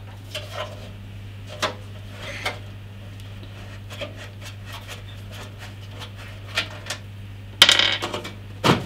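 Scattered light clicks and taps of hands working the screws and steel side panel of a Zalman Z7 Neo PC case, with a louder scraping rattle near the end as the panel shifts, over a low steady hum.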